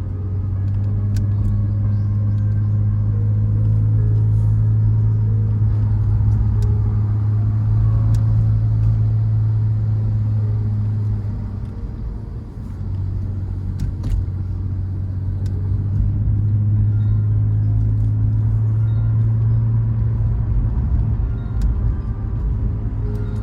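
A car being driven, its engine and road noise making a steady low drone that eases off briefly about halfway through, then picks up again, with occasional faint clicks.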